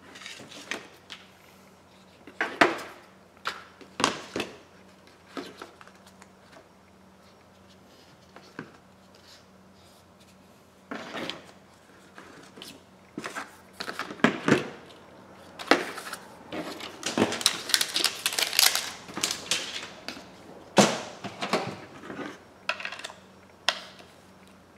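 Handling sounds of a smartphone and a clear plastic case: scattered clicks, taps and plastic rustling, sparse at first and busiest in the second half.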